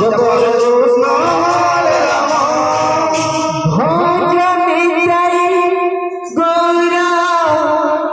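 Male voices singing a devotional harinaam sankirtan chant, with long drawn-out notes that bend and waver. A new phrase starts about six seconds in.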